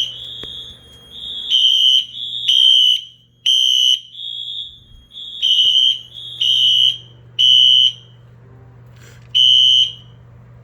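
Fire alarm sounders in alarm after a smoke detector test: a string of short, high-pitched piezo beeps in two slightly different pitches that overlap and interleave, stopping after a last beep near the end. A steady low hum runs underneath.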